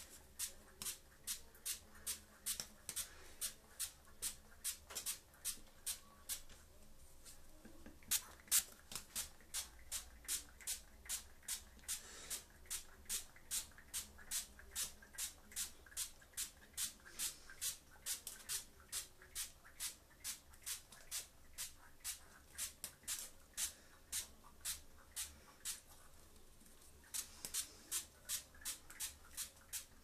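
Water spray bottle squirted over and over in short hissing bursts, about two a second, pausing twice for a second or so.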